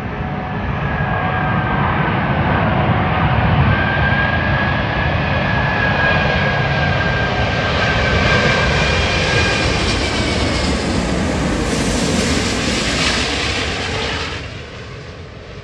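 Airbus A380's four jet engines on landing approach passing low overhead: a loud rushing noise with a high fan whine that slides slightly in pitch. It grows louder and hissier near the end, then falls away sharply about fourteen seconds in.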